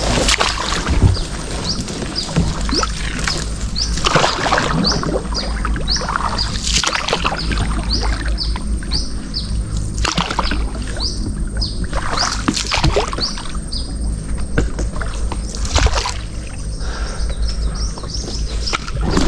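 A bird chirping over and over, short rising notes about twice a second, over a low rumble of moving water and air. Scattered knocks and splashes come from a small rowed boat.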